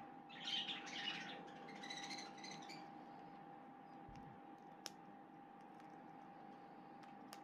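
Cockatiels chirping softly in two short bursts over the first few seconds, then a faint steady hum with a single click just before the five-second mark.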